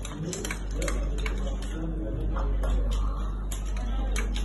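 Plastic Lego bricks clicking and clattering in a quick, irregular series as a Lego vehicle is handled and pushed, with faint voices in the background over a steady low hum.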